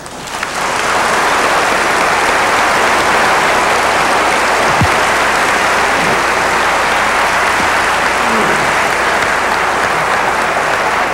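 Large audience applauding: sustained, dense clapping that swells up over the first second and then holds steady.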